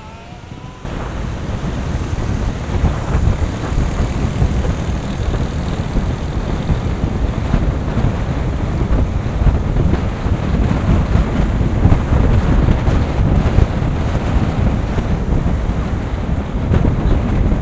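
Wind buffeting a moving camera's microphone: a loud, gusty rush, heaviest in the low end, that starts abruptly about a second in and swells and dips.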